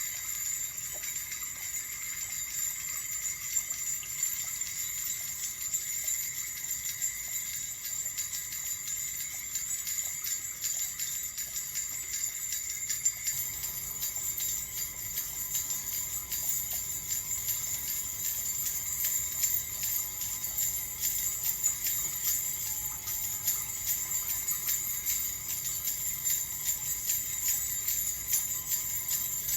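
Small jingle bells shaken continuously in a dense, steady jingling.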